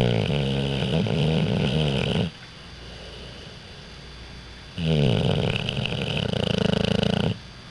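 Six-month-old pit bull puppy snoring loudly in his sleep: two long snores of about two and a half seconds each, with a quieter breath between them. The pitch drops at the start of each snore.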